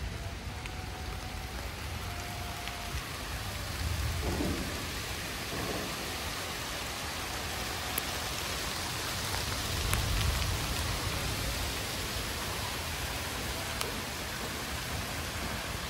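Rain falling steadily, with low rumbles that swell about four seconds and about ten seconds in.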